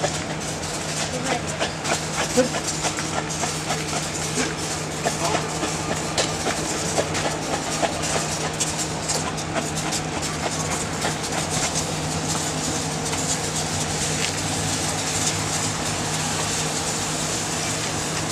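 Hot umu stones sizzling and crackling as they are worked through coconut cream in a wooden tanoa bowl, the oil flaring into flames as the cream caramelises into sosi for fa'ausi. A steady low hum runs underneath.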